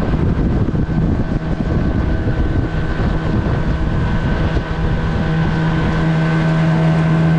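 Motorboat engine running steadily under way, a constant hum over heavy rumbling wind noise on the microphone; the hum comes through more clearly in the second half.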